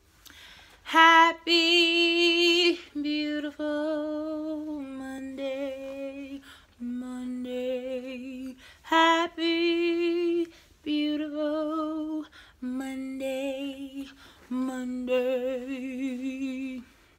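A woman singing unaccompanied, long held notes with vibrato in phrases broken by short breaths. Each of the two phrases opens with its highest, loudest note and then settles lower.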